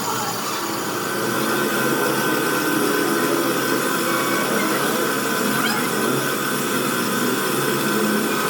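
A power tool running steadily, with a thin high whine that sets in about a second and a half in.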